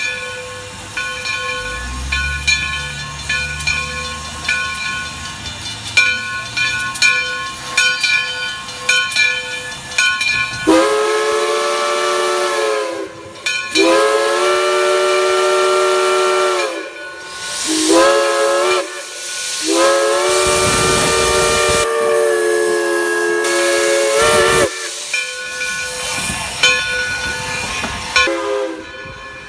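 Steam locomotive's chime whistle blowing loud chords as the engine passes close by: two long blasts, a shorter one, then a final long one, the pattern of a grade-crossing signal. Before and after the whistle, steady ringing tones with regular clanks as the locomotive rolls past.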